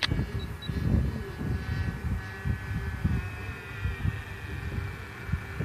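A SPAD Debonaire 46 RC model airplane's engine drones high and distant overhead, its pitch sagging a little through the middle. Wind rumbles and buffets on the microphone, louder than the engine.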